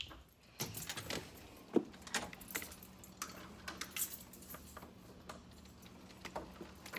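Scattered light clicks and jingling of keys and door hardware as someone goes out through a front door, over a faint steady hum.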